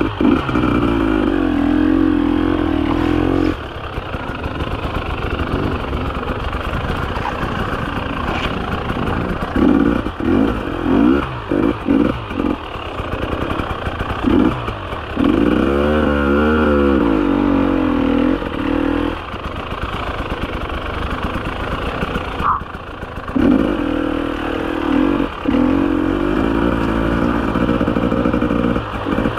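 300 cc two-stroke enduro motorcycle ridden slowly over rough forest ground: the engine is blipped up in short bursts of throttle, rising and falling in pitch, between stretches of steady low-rpm running.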